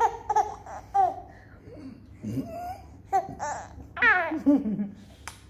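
A four-month-old baby girl laughing and cooing in short bursts, with a higher, longer laugh about four seconds in.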